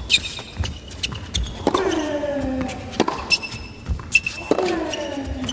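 Tennis rally: racket strikes on the ball about every second and a half, a player grunting with a falling pitch on two of the shots, and short high shoe squeaks on the hard court.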